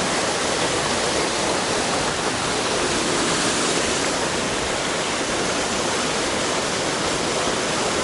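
Steady rush of a waterfall and stream running over rocks.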